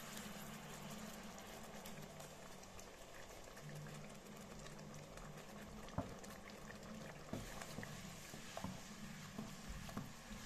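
Ground beef and tomato sauce bubbling gently in a frying pan, a faint steady sizzle over a low hum, with coconut milk just poured in. A few light ticks come later, and a wooden spoon starts stirring near the end.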